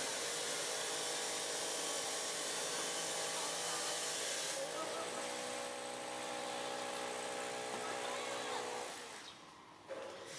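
A steady mechanical whine over a hiss, like a small motor running, its tone shifting slightly about halfway and fading out near the end.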